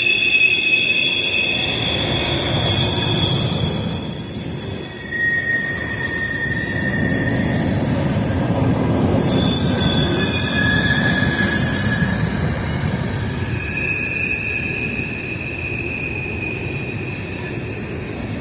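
Passing freight train's wheels screeching against the rails: several high-pitched squeals that come and go and change pitch, over the steady low rumble of the rolling cars.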